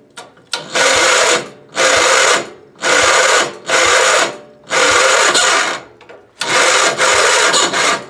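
Tractor engine being cranked over by its electric starter on a weak battery, in about six bursts of cranking with short pauses between. The engine does not catch, though it comes close to starting.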